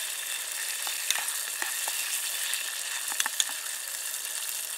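Half-rings of onion sizzling in oil in a small pan set on red-hot campfire coals: a steady frying hiss, with a few sharp clicks about a second in and again just after three seconds.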